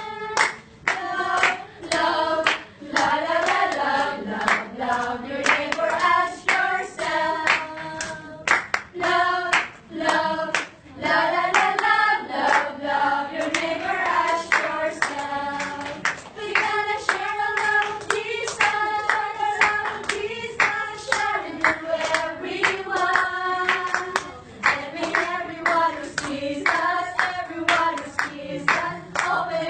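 A group of women singing a song together, unaccompanied, with hand claps.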